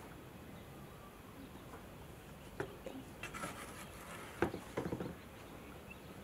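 A rake knocking and clattering against a wheelbarrow as it is set into the tub, the loudest knock about four and a half seconds in. Then rattling as the wheelbarrow is lifted and pushed, over faint background noise.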